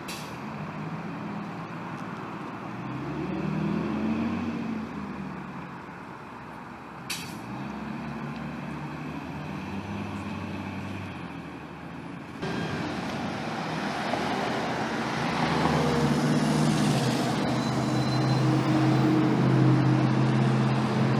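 City transit bus engine pulling away, its pitch rising and falling as it accelerates through the gears, with a short sharp hiss about seven seconds in. About twelve seconds in the sound cuts abruptly to a second transit bus, its engine running louder and steadier as it turns through an intersection, with traffic noise around it.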